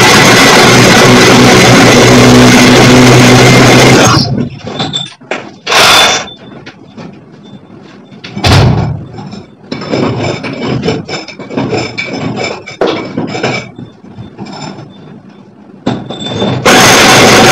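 Power drill boring a hole through a brick wall. It runs steadily, then stops about four seconds in. Two short bursts and a stretch of irregular scraping and knocking follow, and the drill runs steadily again near the end.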